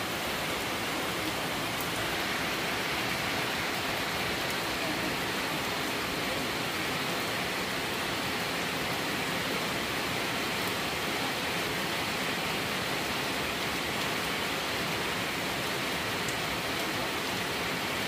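Steady heavy rain falling on flooded pavement and grass: an even hiss with no breaks.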